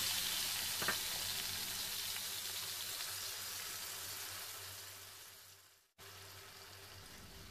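Yogurt-marinated chicken pieces sizzling in a hot oiled frying pan on high heat, stirred with a silicone spatula. The sizzle slowly fades, cuts off abruptly about six seconds in, then returns quieter and steady.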